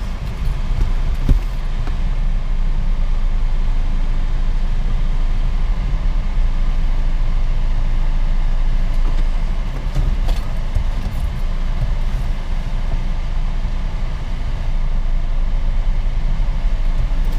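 Steady low road and engine rumble heard from inside a moving car's cabin, with a single short knock about a second in.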